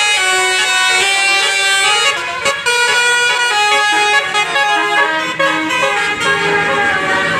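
Tourist bus's multi-tone 'telolet' (basuri) air horn playing a melody, several horn tones sounding together and changing note every fraction of a second.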